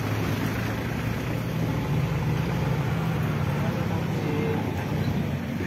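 Suzuki Jimny off-roader's engine running steadily at low revs, a continuous low hum.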